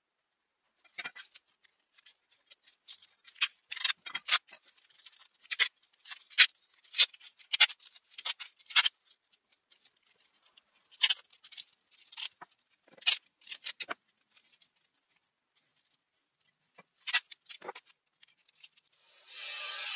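Masking tape being pulled off its roll in short, sharp rips and torn off, as a knife blade is wrapped for protection. Near the end a steady machine noise starts up, the belt sander being switched on.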